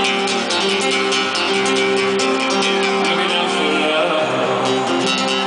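Acoustic guitar played live, a rapid fingerpicked pattern of plucked notes ringing over each other.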